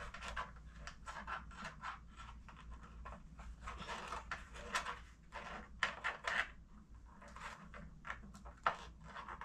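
Packing tape being peeled off the plastic body of a new Keurig coffee maker as hands work the machine: irregular crackly rustles and small scrapes.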